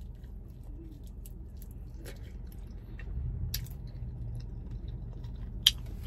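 Chicken wing being chewed close to the microphone: soft wet mouth sounds and small clicks, with one sharp click near the end.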